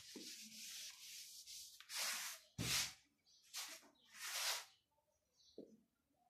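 Whiteboard eraser rubbing over the board: a soft hiss at first, then four short wiping swipes, one of them with a dull knock. A short tap comes near the end.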